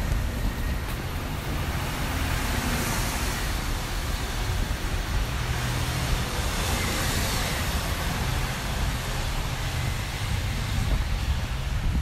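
City street traffic: a steady hiss of vehicles on a wet, slushy avenue over a low rumble, with the hiss swelling as vehicles pass about three seconds in and again around six to seven seconds.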